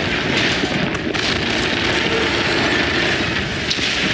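Film sound effects of a high-rise building collapsing: a loud, continuous rumble and crackle of falling concrete and debris.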